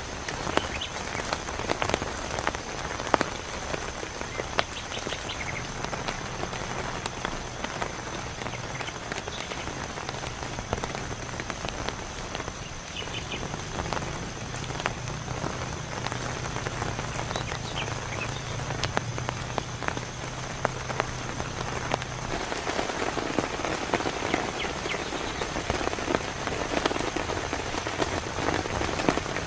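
Heavy rain falling steadily, with many individual drops ticking sharply on a nearby surface. A low steady hum sits under the rain through the middle and stops about 22 seconds in.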